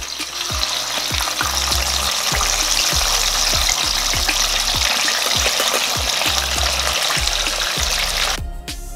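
Chicken halves deep-frying in oil at about 350°F: a dense, loud sizzle and bubbling that builds as the chicken goes in and cuts off suddenly near the end.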